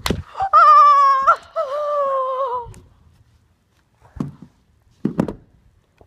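A high-pitched, drawn-out wailing voice in two long held notes, the second slightly lower, followed by two short thumps a few seconds later.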